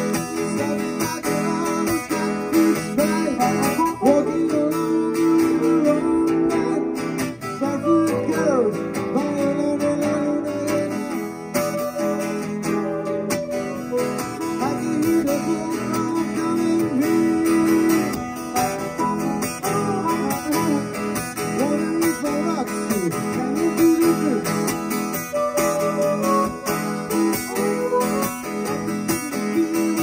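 Live acoustic guitar strummed and picked, with an amplified harmonica played through a handheld microphone over it, its notes bending up and down.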